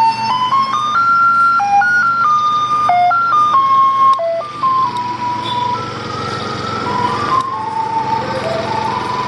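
Sri Lankan bread truck's loudspeaker playing its electronic jingle, a simple tune of single beeping notes, over the low running of the vehicle's engine. The tune breaks briefly about four seconds in and carries on a little fainter.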